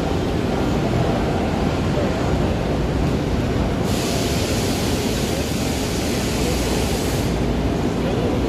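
Steady din of a busy machinery exhibition hall, heavy in the lows. About four seconds in, a hiss starts and runs for some three seconds before stopping abruptly.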